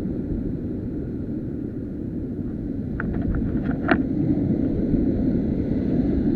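Sea surf breaking and washing against the rocks below, mixed with wind buffeting the microphone as a steady low rumble. There are a few brief clicks about three to four seconds in.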